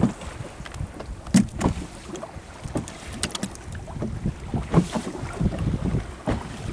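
Wind buffeting the microphone aboard a small open fishing boat at sea, with irregular knocks and slaps from the hull and the water.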